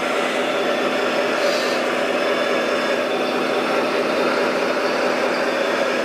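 Radio-controlled model wheel loader running, a steady mechanical hum with several held tones, as it backs up and lifts its loaded bucket.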